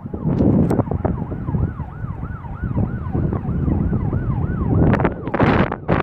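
Wind buffeting the microphone, with a strong gust near the end, over a fainter emergency-vehicle siren in a fast rise-and-fall yelp, about two to three cycles a second.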